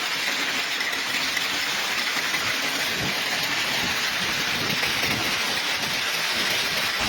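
Rain pouring down steadily, an even, dense hiss.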